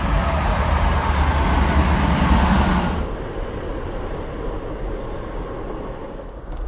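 A train passing close by on the railway line: a loud rushing rumble that cuts off abruptly about three seconds in, leaving a quieter, steady rumble and hiss.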